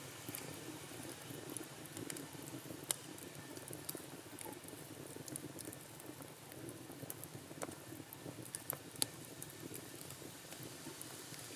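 Wood campfire crackling: a steady low hiss broken by irregular sharp pops, two of them louder.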